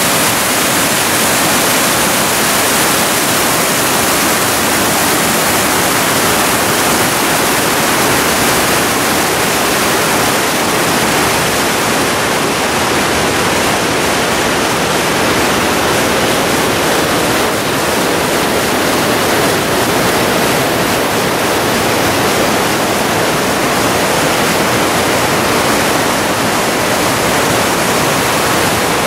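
South Boulder Creek's whitewater rushing over and between boulders: a steady, loud rush of water.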